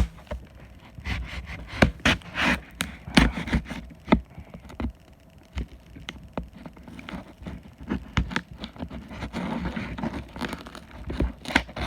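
A cardboard shipping box being opened by hand: cardboard scraping and rubbing, with many scattered knocks and crackles as the box's sides are worked loose.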